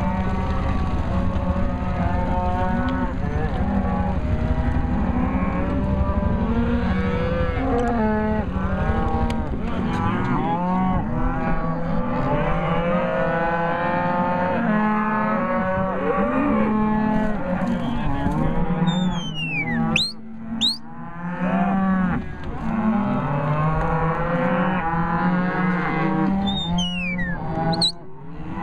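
A large herd of Hereford cows and calves mooing and bawling continuously, many voices overlapping: cow-calf pairs calling to each other while being gathered. A few sharp, high falling whistles cut through near the end, the handler's whistle commands to the working border collies.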